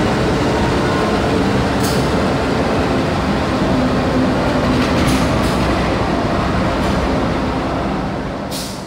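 Passenger train coaches rolling past on the adjacent station track: a steady rumble of wheels on rail, with a few sharp clacks. The rumble eases off slightly near the end.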